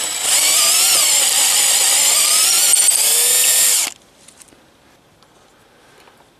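Power drill with a twist bit boring into a wooden board, enlarging a pilot hole. The motor runs steadily with a wavering whine as the bit cuts, then cuts off suddenly about four seconds in, leaving faint clicks.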